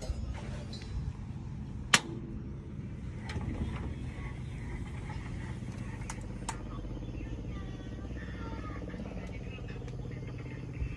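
Open-air ambience with a steady low hum, broken by one sharp click about two seconds in.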